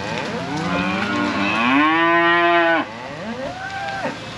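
Young beef cattle mooing: a few overlapping calls, then one long, steady moo about a second and a half in, and a shorter moo near the end.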